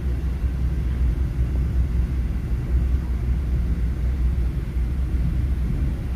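Express train running, heard from inside the passenger carriage: a steady low rumble.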